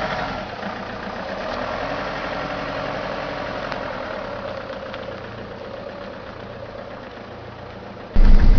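Renault Master flatbed truck's 2.2 turbodiesel engine running at low speed as the truck moves slowly, heard from outside the vehicle, its sound slowly fading. About eight seconds in, a much louder, close-up rumble cuts in suddenly.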